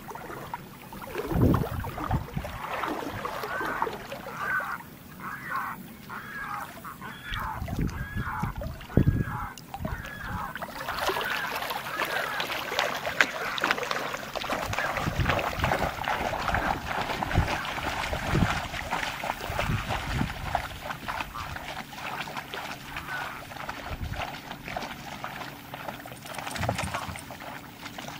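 Dogs wading and splashing through shallow water, with water trickling and slapping from about the middle onward. Earlier, an animal gives a string of about seven short, quickly repeated cries.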